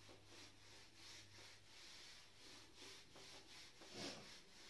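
Faint repeated swishing of a felt duster wiped across a whiteboard, about two strokes a second, with a slightly louder bump near the end.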